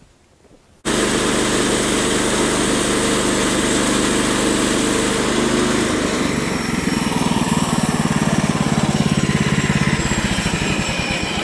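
Woodland Mills HM126 portable bandsaw mill running with its gas engine at speed, cutting a black walnut round; the sound comes in abruptly about a second in. About halfway through the engine note turns into a rapid pulsing and grows a little louder as the blade works through the wood.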